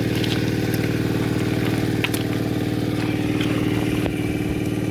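Diesel engine of a water pump running steadily at one speed, pumping water out to drain a fishing pond, with a few light clicks over it.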